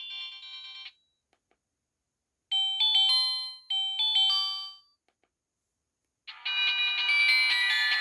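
Preset tones from a HYKKER Classic mobile phone's speaker: one tone ends within the first second, then a short chime-like alert plays twice in quick succession, and a new, busier ringtone melody with a steady beat starts near the end.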